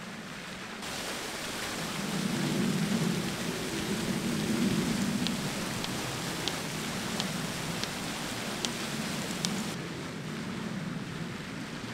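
Fountain water splashing steadily into a pool, a rushing noise that grows louder and hissier about a second in and eases near the end, with a few faint sharp ticks in the middle.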